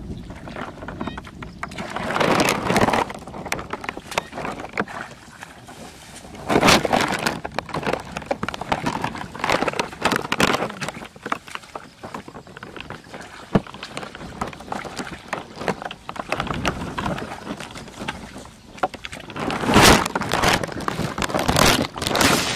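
Shallow muddy water splashing and sloshing as hands grope and scoop through it, in irregular bursts a few seconds apart, the loudest about two, seven and twenty seconds in.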